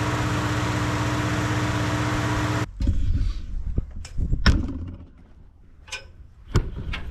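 Engine idling steadily, shut off abruptly about two and a half seconds in, followed by scattered clunks, knocks and clicks.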